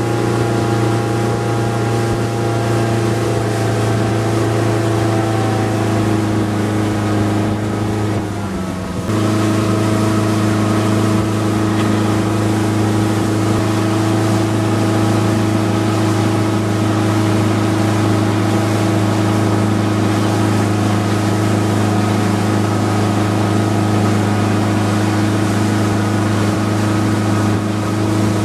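Tow boat's engine running at a steady towing speed: a constant, even drone over water and hull noise. About eight seconds in it briefly dips and breaks, then resumes at a slightly different pitch.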